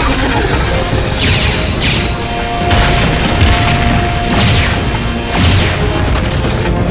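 Cartoon slapstick sound effects over music: a run of about five quick swooshes falling in pitch, with deep booms and crashes underneath.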